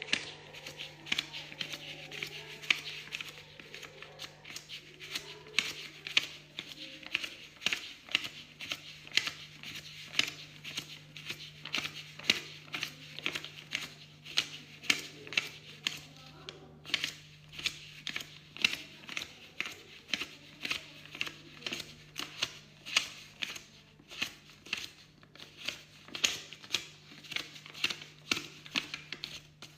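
Paper banknotes being counted by hand, each note flicked with a crisp papery snap, about two a second in a steady rhythm, over a faint steady hum.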